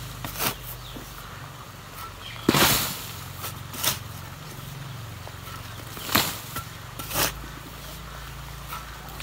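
Hand hoe chopping into red clay soil: about five irregular strikes a second or so apart, the loudest, a chop with a short drag through the clods, about two and a half seconds in.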